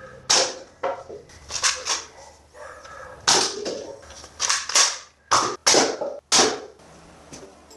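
A toy foam-dart blaster firing a run of about a dozen sharp pops, some in quick pairs and triples, as paper cups are shot off a shelf.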